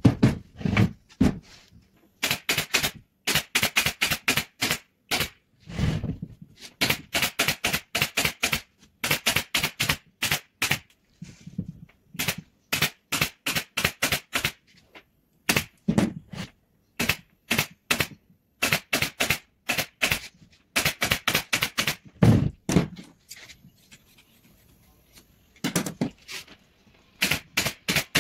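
Rapid runs of sharp clicks from a hand tool working on a chair, about five a second, in bursts separated by short pauses, with a few duller thumps among them.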